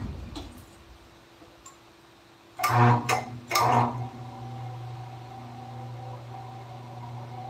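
A motor-driven machine starting up, with two loud bursts about two and a half seconds in, then running with a steady low hum.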